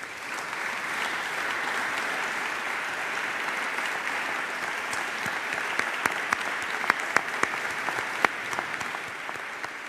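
Sustained applause from a room of seated parliamentary deputies: dense, even clapping, with a few single louder claps standing out in the second half as it begins to thin near the end.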